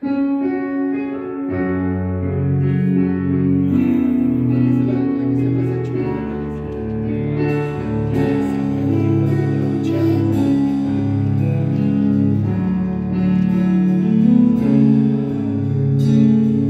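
Rock band playing in a studio, led by electric guitar over a moving bass line, with drums and keyboard; the music starts suddenly.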